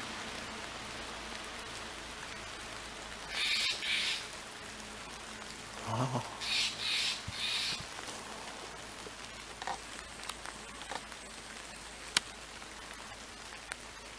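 Steller's jay giving harsh, squawky calls: a pair about three and a half seconds in, then a run of three a couple of seconds later. Steady patter of rain underneath, with scattered sharp drip-like taps, the loudest near the end.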